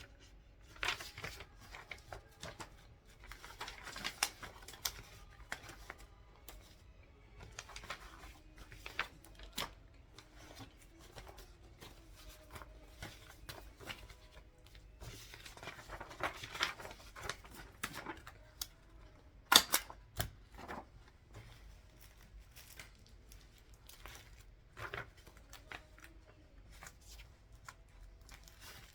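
Paper being handled and torn: irregular rustling, crinkling and tearing of sheets, with scattered sharp clicks and taps. The loudest is a single sharp click about two-thirds of the way through.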